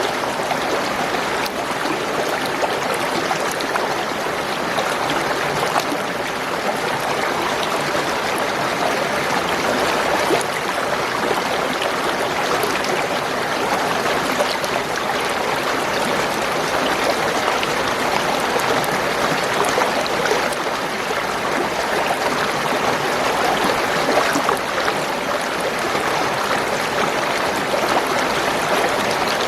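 Spring water gurgling and trickling steadily over stones.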